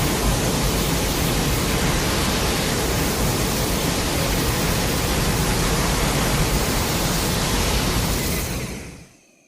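Godzilla's atomic breath sound effect from the 2002–03 films: a loud, steady rushing hiss that dies away near the end with a brief ringing tail.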